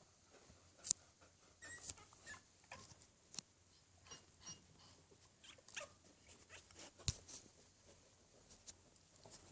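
Puppies about twelve days old giving faint squeaks and whimpers, among scattered soft clicks and scratches.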